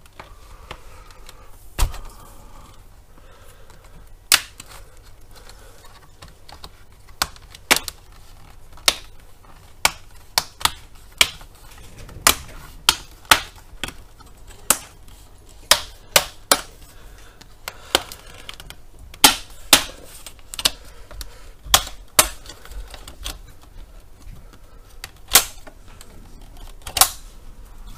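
Plastic clips of an Asus F55V-series laptop's display bezel snapping loose as the bezel is pried off with a plastic pry tool: a long run of sharp, irregular clicks, some louder than others.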